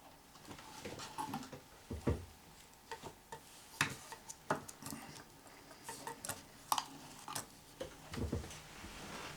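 Faint, irregular light clicks and knocks, a few of them with a low thud, coming every half second or so without a steady rhythm.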